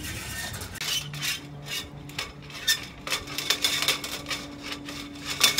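Electrical wires and cables rubbing and scraping against the metal sailboat mast as they are handled and pulled through it: a run of irregular scrapes, over a faint steady hum.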